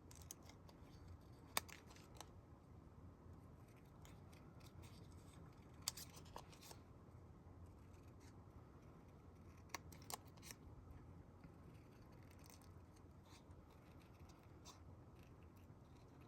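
Small scissors snipping paper, faint, while cutting out a small paper shape, with a few sharper clicks of the blades about a second and a half in and again around six and ten seconds in.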